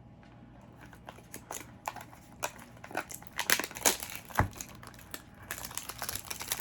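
Plastic wrapping on small hair-product bottles crinkling as it is pulled off by hand: short irregular crackles that grow busier and louder from about a second in.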